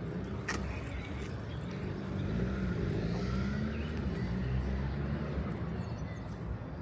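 A motor vehicle going past on a city street, its low engine and road hum growing louder about two seconds in and easing off toward the end.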